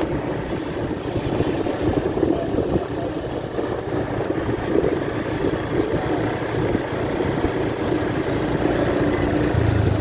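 Small motorcycle engine running steadily while riding, mixed with wind rumbling on the microphone. A low hum grows stronger near the end.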